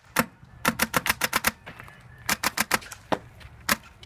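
Airsoft rifles firing: sharp, clicky shots in two quick bursts of several rounds, about a second in and again just past two seconds, with single shots around them.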